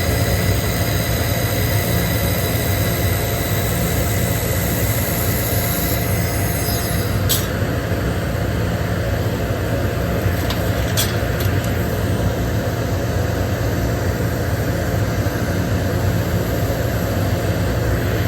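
Steady, loud machine hum and hiss, with high whining tones that fade out about seven seconds in and a few sharp high ticks around the middle.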